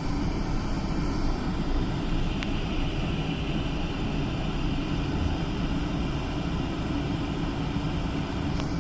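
Steady drone of a jet airliner's engines and airframe heard from inside the cabin while the plane taxis, with an even low hum. Two faint ticks come through, one a couple of seconds in and one near the end.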